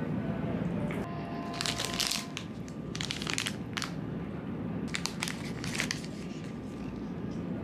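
Clear plastic wrapper of a packaged madeleine crinkling as it is handled and opened, in five short rustling bursts.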